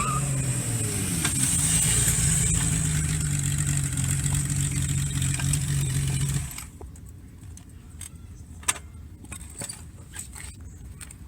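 Kawasaki KZ1300 inline-six engine: the revs fall, then it runs at steady low revs and stops abruptly about six and a half seconds in. Faint clicks and ticks follow.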